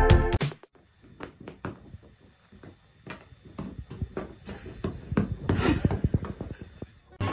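Swing-style brass music cuts off about half a second in. Then come quiet, scattered taps and rustling, growing busier in the last few seconds, as a cat pounces and paws about on a bed's duvet.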